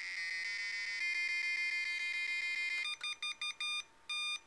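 Growler SWR bridge's square-wave tone, a buzzy growl whose pitch follows the measured SWR, steps to a higher pitch about a second in. Near the end it switches to keyed Morse-code beeps sounding out the SWR reading of 4.9: four short beeps and a long one for '4', then long beeps of the '9'.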